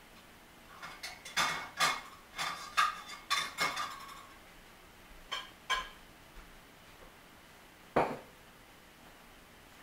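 Double-stack container train cars clanking as they roll past: sharp metallic clanks with a ringing tail, irregular and bunched together for the first few seconds, then two more and a single loud one near the end.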